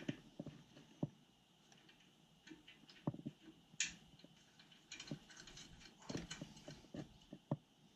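Faint, scattered clicks and taps of hands working at a boiler's gas valve, fitting test hose and fittings to its pressure tap, with one sharper, higher-pitched tick just before four seconds in.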